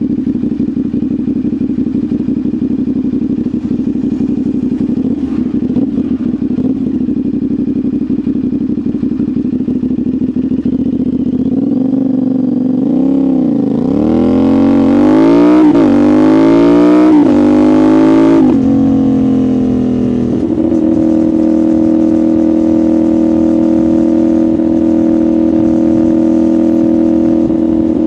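CFMoto 450SR's parallel-twin engine and exhaust running steadily, then accelerating hard from about 12 seconds in, with the pitch climbing and dropping at several quick upshifts. After a short dip it settles into a steady, higher cruising note.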